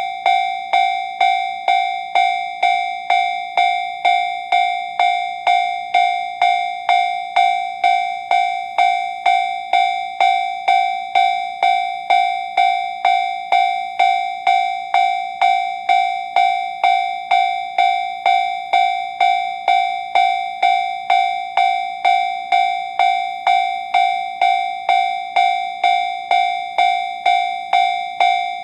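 Japanese railway crossing warning bell, the electronic JR standard sound, dinging at a steady rate of a little under two strokes a second with a bright ringing tone: the crossing is active, warning of an approaching train.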